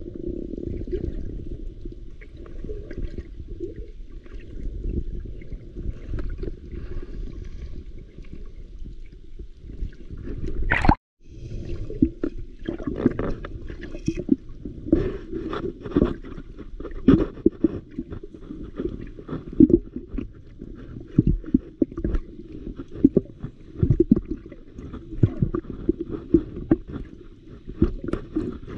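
Muffled underwater sound recorded with the camera submerged in shallow sea water: a low, dull wash scattered with irregular sharp clicks and crackles, more frequent in the second half. About eleven seconds in, a quick rising tone is followed by a brief dropout.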